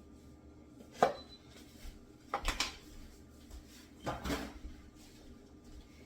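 Kitchen utensils knocking against a bowl: one sharp tap about a second in, then two short bursts of several quick clattering strikes.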